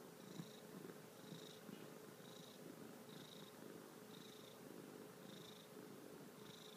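Soft, steady purring from a calico cat, pulsing about once a second.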